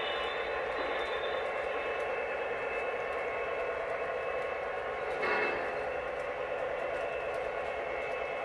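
Lionel O-gauge model freight train running past on the layout track, a steady hum of humming tones and rolling noise, with a brief louder burst about five seconds in.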